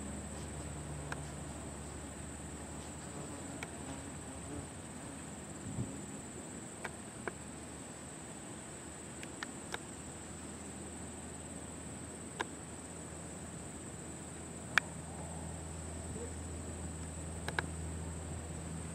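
Steady high-pitched trilling of insects, over the faint low drone of a light plane's engine throttled back on its landing approach. Several sharp clicks are scattered through it, the loudest about fifteen seconds in.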